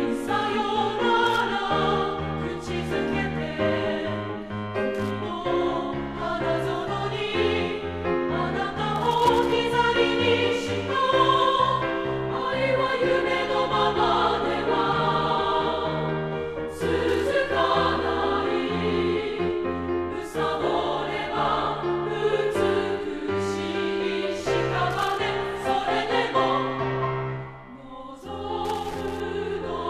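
Background music: a women's choir singing, with a brief dip in loudness near the end.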